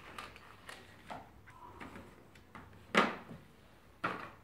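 Plastic toy tools being handled in a tray: scattered light clicks, then two sharp knocks about three and four seconds in, the first the loudest.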